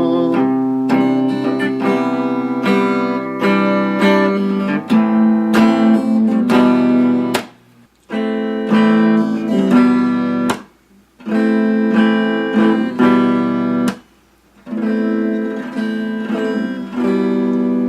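Acoustic guitar strumming chords in an instrumental break, breaking off for a moment three times in the second half.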